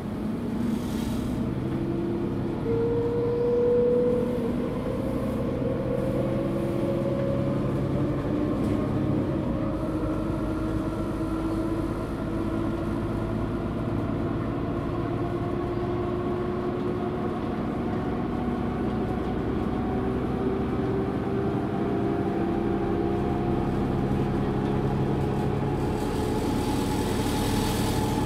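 Mercedes-Benz Citaro G articulated bus, its OM457 diesel engine and ZF Ecomat 6HP automatic gearbox pulling in fifth and sixth gear, heard from on board. The engine and gearbox whine rises slowly and steadily in pitch as the bus gathers speed.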